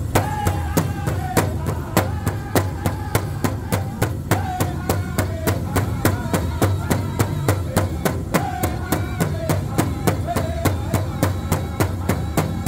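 Powwow drum group singing a Men's Chicken Dance song: several men strike a large hand drum in unison at about four beats a second while singing together in long held, falling phrases.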